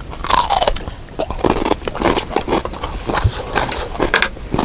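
Close-up eating: a large mouthful being bitten and chewed, heard as a quick, irregular run of short wet clicks and smacks.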